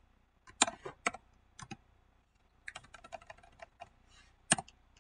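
Typing on a computer keyboard: a few separate keystrokes, then a quick run of lighter ones a little past halfway, and one louder click near the end.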